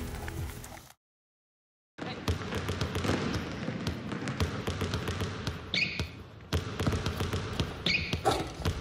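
A basketball bouncing again and again as it is dribbled on a concrete court, in quick irregular strikes that start after about a second of dead silence.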